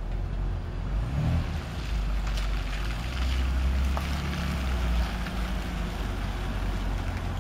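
BMW E39 528i Touring's straight-six running with a steady low drone, with a rushing hiss of tyres on wet pavement swelling in the middle.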